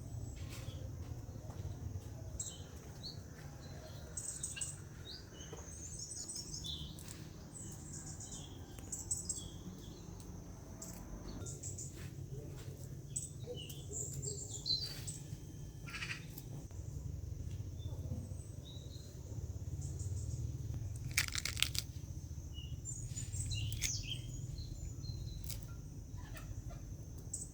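Small birds chirping: many short, high calls scattered throughout, over a low steady rumble.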